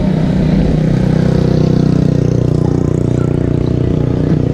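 Yamaha R6 sportbike's inline-four engine running at a steady speed, without revving.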